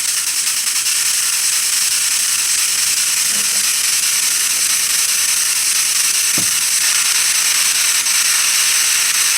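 Loud, steady static hiss with faint rapid clicking through it. A short, faint low sound comes about six seconds in.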